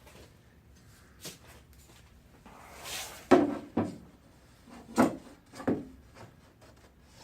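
A straightedge being laid against and moved over a car door panel: a short scrape, then several sharp clacks as it knocks against the panel.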